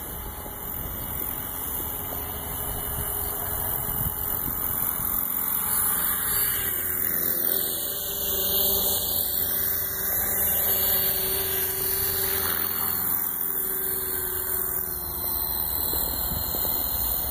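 Electric 450-size RC helicopter (E-Razor 450) in flight: a steady whine of the motor and rotor blades, its pitch drifting slightly, growing louder toward the middle and easing off later.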